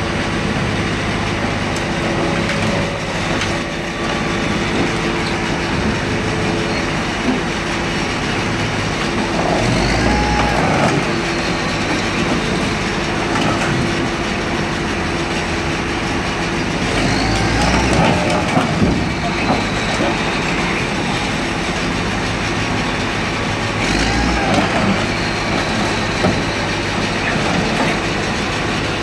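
Heavy diesel machinery of a scrapyard car crusher and loader running steadily, with creaking, crackling and squealing of a car's sheet metal bending under pressure, three times swelling into louder squeals.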